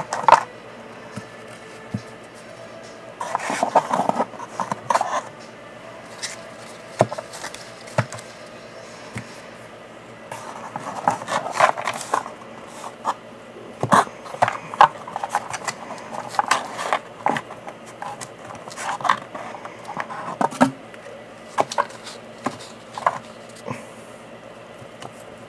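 Trading cards being handled inside a cardboard storage box: cards rustling and scraping against each other and the cardboard walls, with scattered sharp taps and clicks coming in irregular bursts.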